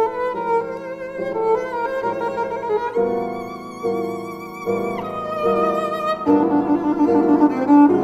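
Violin and piano playing: the violin draws sustained notes with vibrato, including a long high note in the middle that slides downward, over piano chords struck again about once a second.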